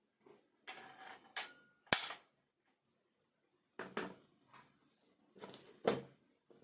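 Mechanical clicks and knocks from handling a Norica Dream Hunter underlever air rifle during a trigger-pull test, with two sharp cracks, about two seconds in and again near the end, as the action is released.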